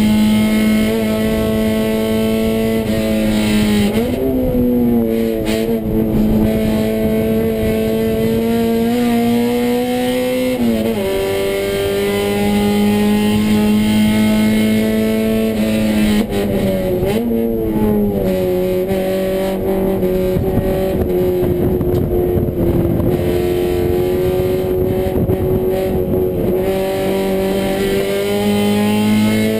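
Acura Integra GSR 1.8-litre DOHC VTEC four-cylinder, swapped into a 1995 Honda Civic coupe, running hard on track, heard from inside the cabin. The engine note holds steady and climbs slowly, then drops sharply about eleven seconds in. It falls again around seventeen seconds and starts rising near the end.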